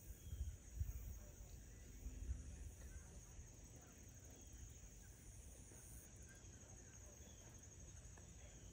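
Faint outdoor ambience: a steady high-pitched insect chorus, with a low rumble on the microphone during the first few seconds and a few faint chirps.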